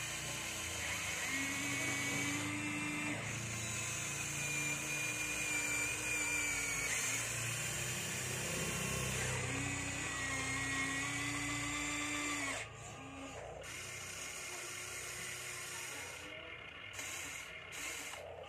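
Small electric gear motors of a toy RC excavator whining as the boom, arm and bucket move, in spells of a few seconds each that shift in pitch. The whine drops suddenly to a quieter level about two-thirds of the way through.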